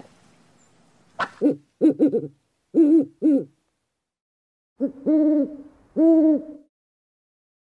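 A bird giving a series of low hooting calls: several short hoots, then a pause and three longer, drawn-out hoots.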